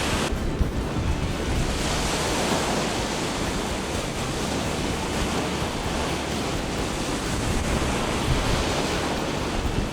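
Sea waves washing on the shore, a steady rushing noise that swells now and then, with wind buffeting the microphone.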